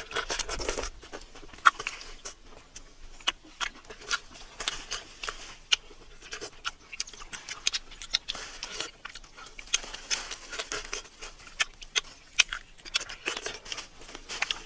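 Rambutans being torn open and eaten by hand: the rinds cracking and tearing, with chewing and the rustle of leafy stems, as a close run of small irregular clicks and cracks.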